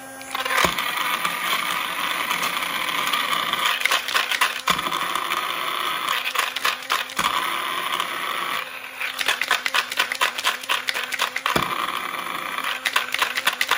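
Gevi portable battery-powered blender running, its small motor whirring while frozen strawberries, oats and water are chopped, with constant rattling and clicking of frozen pieces against the plastic jar. There are a few brief dips in the sound.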